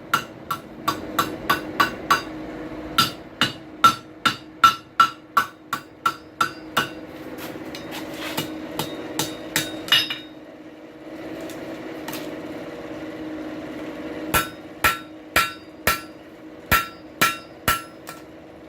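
Blacksmith's hammer striking hot steel on an anvil, each blow ringing, in quick runs of about two to three blows a second as the hook is bent and shaped. The hammering pauses for about four seconds partway through, then resumes. A steady hum runs underneath.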